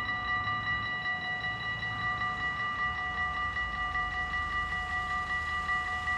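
Dutch level-crossing warning bells ringing continuously in quick repeated strokes while the barriers are down, the signal that a train is approaching. A low rumble builds underneath in the second half.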